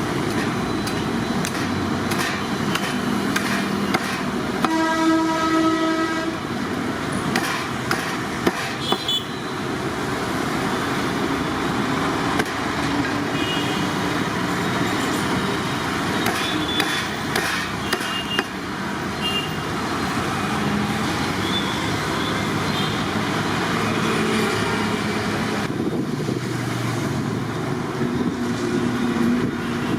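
Steady street traffic noise with a vehicle horn sounding once for about a second, about five seconds in. A few sharp knocks follow about eight to nine seconds in.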